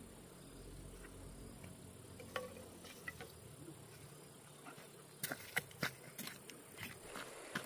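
Faint steady insect trilling with a low hum under it. Scattered sharp clicks and knocks come in, growing more frequent from about five seconds in.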